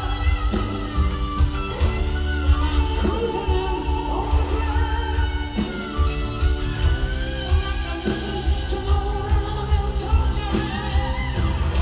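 Live rock band playing through an arena PA, heard from the audience: electric guitar with bending notes over a drum kit, with singing.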